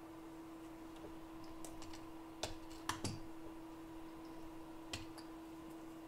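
A few scattered sharp clicks and taps of a small metal blade and tools against an iPhone X logic board, the loudest pair about three seconds in and another near five seconds, over a steady low hum.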